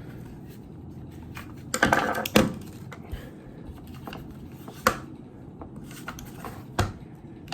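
Hard plastic clicks and knocks as the plastic housing of a neck cooler is handled and pried at: a quick cluster about two seconds in, then single sharp clicks near five and seven seconds.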